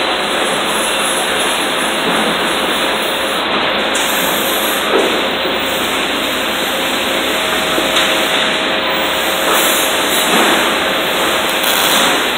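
Electric arc welding on steel, a loud, steady hiss running without a break.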